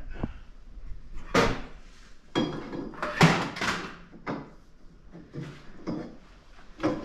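Steel roll-cage tubes knocking and clanking as they are handled and fitted into place: a string of sharp knocks roughly once a second, some ringing briefly, the loudest about three seconds in.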